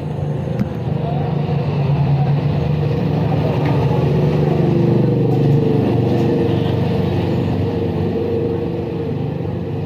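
Nautilus Clickr 148 rear freehub buzzing as the wheel freewheels after a hand spin, its pawls clicking too fast to count in a bee-like buzz. The hub runs three modified and three standard pawls set alternately. It builds to its loudest about halfway, then slowly fades and drops in pitch as the wheel coasts down.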